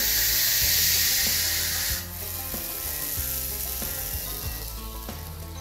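Hognose snake hissing defensively: one long, loud hiss that cuts off sharply about two seconds in. Soft background music with plucked notes and a low bass runs underneath.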